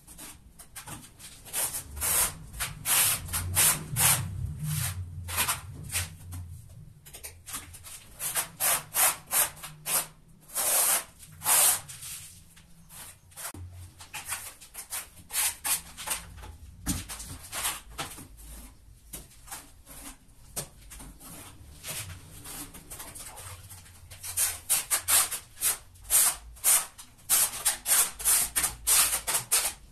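Steel notched trowel scraping thick tile mortar: scooping it out of a plastic bucket and combing it across the back of a large-format porcelain tile in repeated short strokes. The strokes come fastest near the end.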